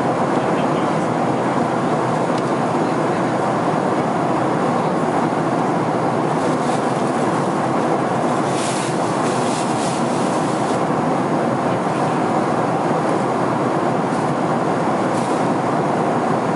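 Steady cabin noise of a Boeing 767-400ER in cruise at about 34,000 ft: an even, unbroken rush of engine and airflow noise that holds the same level throughout.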